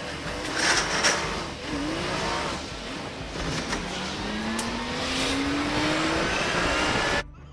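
Kenworth W900 semi truck pulling a loaded flatbed, its engine pulling up through a gear with a slowly rising pitch over steady road and wind noise. There are a few short hissing bursts about a second in, and the sound cuts off suddenly near the end.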